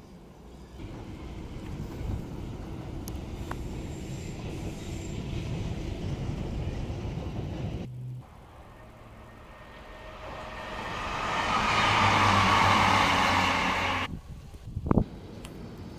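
Train on the nearby tracks: a low rumble at first, then wheel-on-rail noise swelling to its loudest about twelve seconds in and cutting off suddenly. A sharp knock follows near the end.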